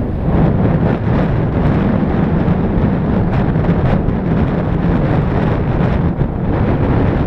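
Loud, steady wind rumble on the microphone of a skier's camera moving downhill, with skis hissing and scraping over groomed snow.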